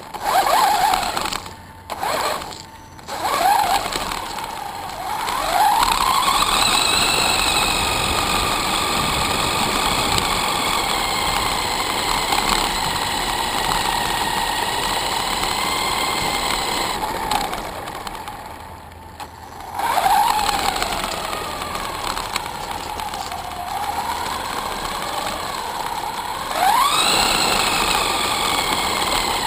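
Axial Exo RC buggy's Tekin 4600kV four-pole brushless motor on a 3S battery whining under throttle, its pitch climbing about six seconds in and holding at speed, falling away briefly around eighteen seconds, then climbing again twice as it is punched. Tyres crunch over the gravel and dirt beneath.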